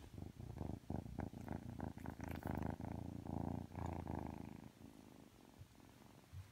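Ragdoll kitten purring right up against the microphone, loud and rapidly pulsing for the first four and a half seconds, then fading. Brushing noises from its face rubbing on the phone come partway through.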